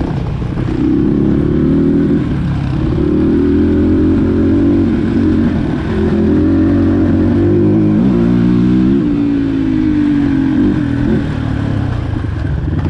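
Dirt bike engine running under way, its revs rising and falling several times as the throttle is worked, with a quick up-and-down slide in pitch about eight seconds in.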